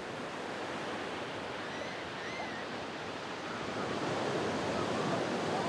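Ocean surf: a steady wash of breaking waves, swelling a little about four seconds in.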